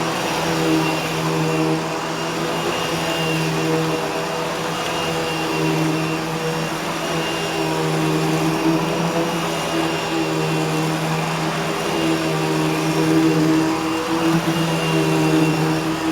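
Eureka The Boss Smartvac 4870 upright vacuum cleaner running during vacuuming: a steady motor hum at constant pitch, with small swells and dips in loudness as it is pushed along.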